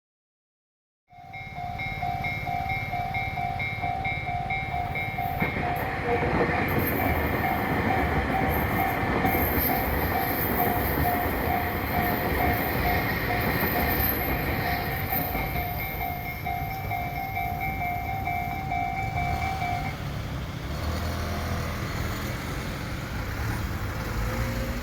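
Level-crossing warning bell on the Tobu Skytree Line, ringing in a rapid repeating two-tone pulse as a train runs past over the rails. The bell starts about a second in and stops about twenty seconds in, while the train's rumble carries on.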